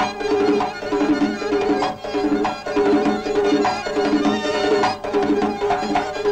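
Traditional Georgian folk dance music: a held, sustained melody over a steady drum beat that strikes about once a second.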